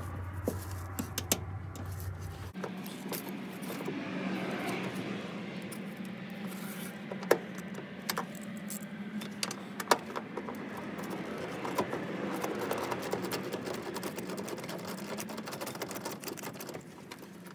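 A hand ratchet on a socket clicking, with metal tool clinks, as a seat bolt is loosened; irregular sharp ticks over a steady low hum.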